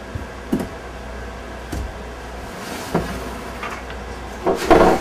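Plastic lid being pressed onto a flour storage container and the container knocked about and set down on a table: a few light knocks, then a louder clatter near the end.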